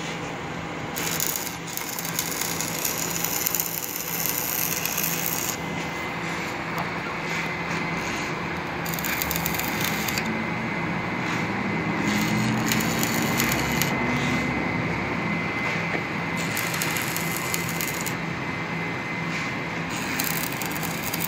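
Stick arc welding with a small inverter welder: the electrode arc crackles and sizzles steadily as a weld is laid on the steel of a truck's rear bumper.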